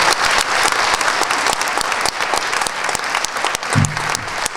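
Audience applauding: a dense, steady patter of many hands clapping, with a brief low hum close to the microphone near the end.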